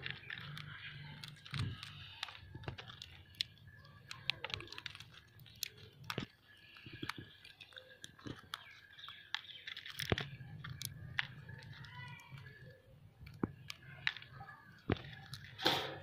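Indian ringneck parakeets cracking roasted chickpeas in their beaks: a string of sharp, irregular crunches and clicks.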